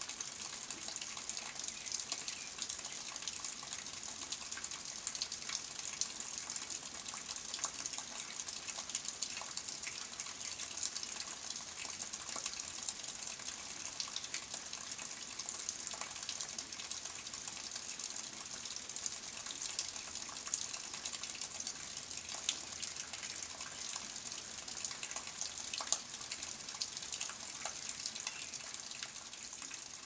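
Steady rain pattering on leaves and foliage: an even hiss scattered with many small drop ticks.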